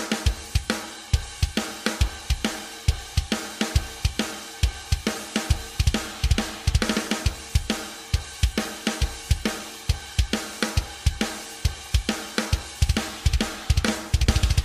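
Isolated metal drum-kit track: kick drum, snare and crashing cymbals and hi-hat played hard in a driving rhythm. Near the end the kick drum breaks into a rapid, unbroken run of strokes.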